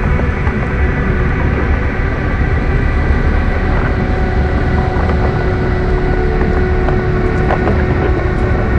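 A steady, deep rumble, the sound-designed rumbling of a nightmare landscape, with low droning tones held over it.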